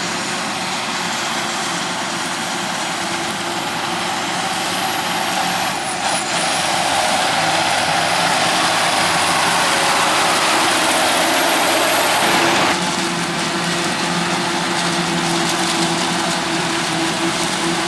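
Heavy farm machinery running close by: a steady rush of engine and machine noise with a faint high whine. It grows louder, then drops suddenly about thirteen seconds in.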